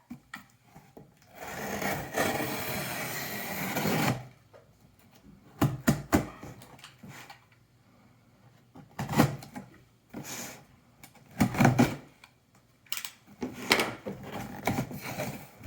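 Unboxing a rack patch panel: a steady scraping rasp of cardboard packaging for about three seconds, starting about a second in, then scattered knocks, clicks and rustles as the box and panel are handled.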